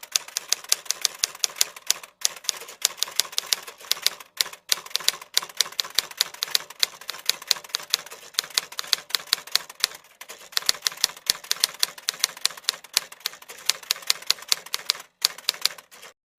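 Manual typewriter typing: rapid irregular keystrikes, several a second, with brief pauses now and then.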